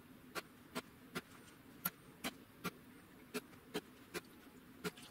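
Sharp ticks in a steady rhythm, about two or three a second, falling in groups of three with a slightly longer gap between groups, over a faint hiss.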